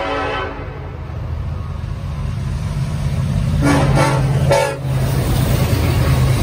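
Norfolk Southern diesel freight locomotive approaching and passing. A horn blast ends about half a second in, the engines' low rumble then builds as the train nears, and a few short horn blasts sound a little before the lead unit goes by.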